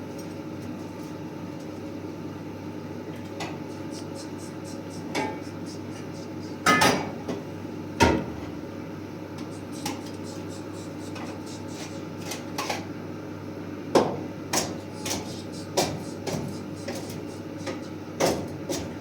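Scattered knocks and clinks of hard household objects being handled and set down, over a steady background noise, with the sharpest knocks about 7, 8 and 14 seconds in.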